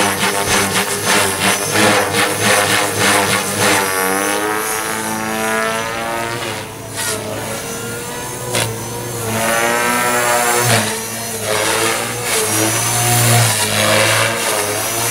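Align T-Rex 450 DFC electric RC helicopter in flight: a steady hum of the rotor blades with the high whine of the brushless motor and gears. The sound dips for a few seconds in the middle and swells again as the helicopter moves about.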